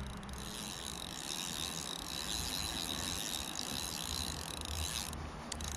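Korum Latitude Freespool 5000 spinning reel being wound in: a steady mechanical whirr with a faint high ringing tone, which stops about five seconds in.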